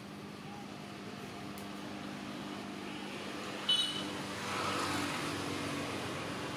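Steady low hum, like a distant engine, under a faint background hiss. About halfway through comes one short, high squeak, followed by a swell of hiss.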